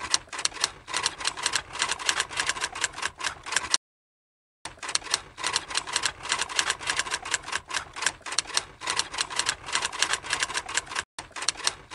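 Typewriter keys clacking in quick succession, several strokes a second, with a break of just under a second about four seconds in and another brief break near the end.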